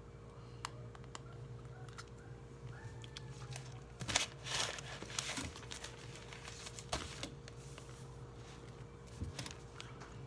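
Quiet desk sounds over a steady low hum: scattered light clicks, then a burst of crinkly rustling about four seconds in, like paper being handled, with a shorter rustle about seven seconds in.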